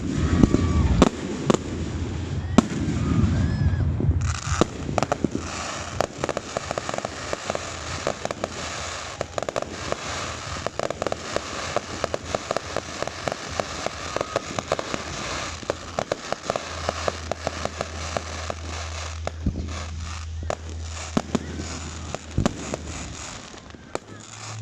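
Aerial fireworks going off: deep booms of bursting shells in the first few seconds, then a dense run of crackling and sharp pops for about ten seconds that thins out into scattered bangs.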